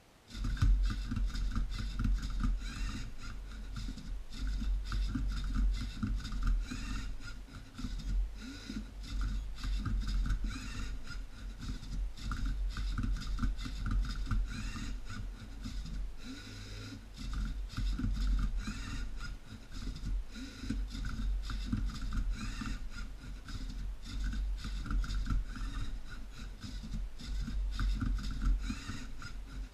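Lego Mindstorms NXT servo motors whining and plastic gears and beams clattering as a Lego robot flips and turns a Rubik's cube move after move, with short rising motor whines as each move starts. The racket starts suddenly right at the beginning and runs on without a break.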